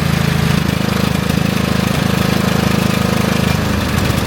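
Briggs & Stratton 22 hp overhead-valve V-twin on a Craftsman GT5000 riding mower, running steadily after a start. Its freshly cleaned carburetor has cured a no-start.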